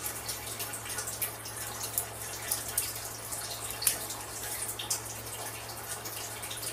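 Scattered light clicks and taps of hands working a roti dough ball in a steel bowl of dry flour and setting it on the rolling board, over a steady low hum.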